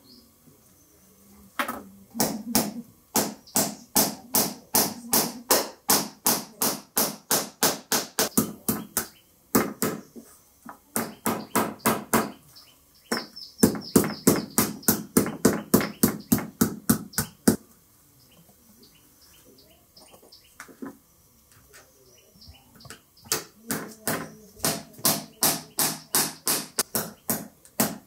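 Small hammer driving short nails through a metal strip into the head of a coconut coir broom: runs of sharp, light strikes at about three a second, broken by a few pauses.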